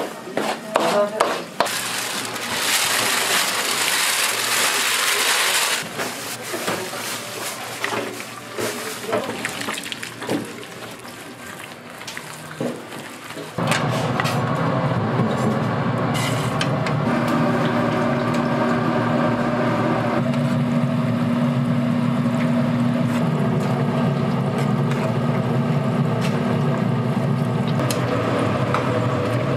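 A silicone spatula scraping and slapping through thick batter in a stainless steel bowl, with a few seconds of hiss about three seconds in. About fourteen seconds in the sound jumps to a steady sizzle of battered chicken frying in an electric deep fryer's hot oil, over a low steady hum.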